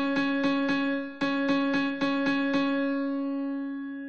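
Karaoke guide melody: a song's vocal line played alone as a single synthesized instrument tone. It strikes the same note in quick succession, then holds a last note that fades away near the end.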